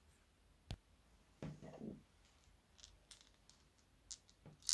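Quiet handling sounds of a spoon and small plastic beads over a glass bowl. There is one sharp click under a second in, a brief soft scrape around a second and a half, then a few light scattered ticks toward the end.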